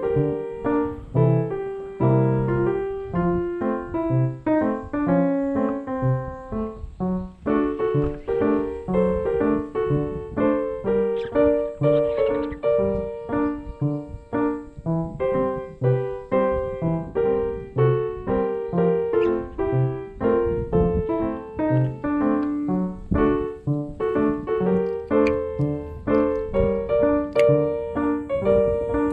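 Background music: a piano or keyboard tune with quick, evenly paced notes.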